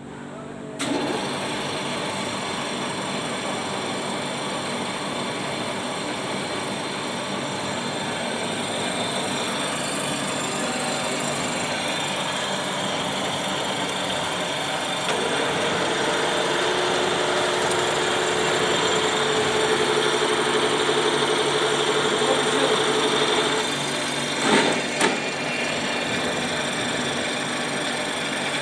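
WMW BFT 80 horizontal boring machine running under power, a steady mechanical whirring that comes up sharply about a second in. A steady higher tone joins about halfway through for several seconds, and two short clunks come near the end.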